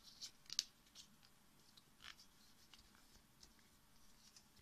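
Faint rustling and crinkling of a sheet of paper being folded and creased by hand, a few soft scattered crackles.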